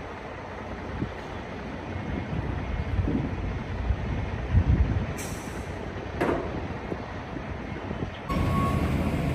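Low, uneven rumble of idling diesel trucks, with a short beep near the end.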